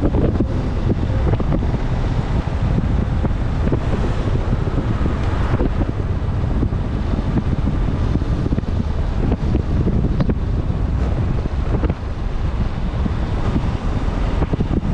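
Wind buffeting a GoPro 9's microphone on a moving motorcycle: a steady, dense rumble with the ride's road noise mixed in.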